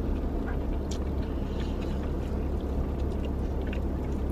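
Steady low rumble of a parked car running, heard inside the cabin, with a few faint clicks of a plastic fork against a takeout bowl.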